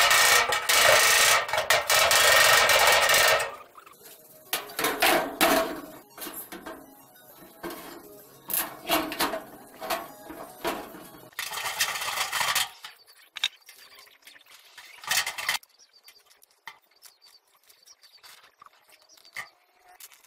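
Workshop tool noise in several loud bursts. The longest lasts about three seconds at the start, and shorter ones follow through the middle, with small knocks and clatter of metal parts between them.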